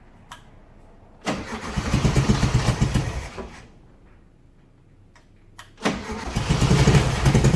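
1971 VW Beetle's air-cooled flat-four engine starting twice, each time sputtering for about two seconds and then stopping. It will not stay running, in a car with known fuel delivery trouble.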